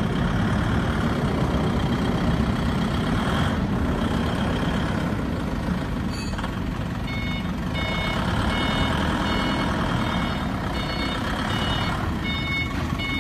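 3-ton diesel forklift's engine running steadily as the truck drives, with its reversing alarm sounding short high beeps about twice a second from about halfway through.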